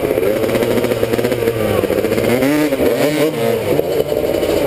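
Gas dirt bike engines running close by, revving up and down several times around the middle as the bikes fight for grip in a muddy rut.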